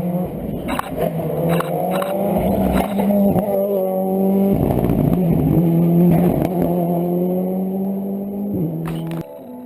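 Rally car engine under hard acceleration, its pitch climbing and falling back several times as it changes gear, with a few sharp clicks along the way. The sound cuts off suddenly near the end.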